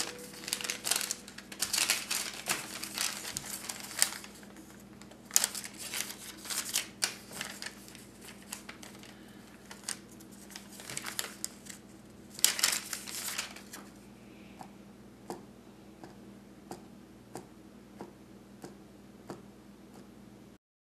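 Paper receipts being handled, rustling and crinkling in repeated bursts, then sparse light taps while writing in a notebook, over a steady low hum; all sound cuts off just before the end.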